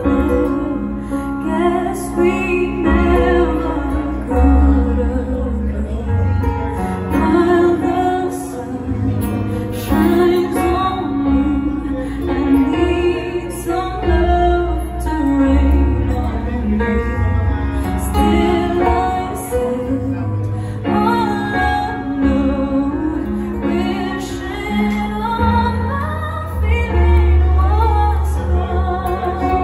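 A woman singing a ballad into a microphone with vibrato on long held notes, accompanied by acoustic guitar and keyboard with sustained low bass notes.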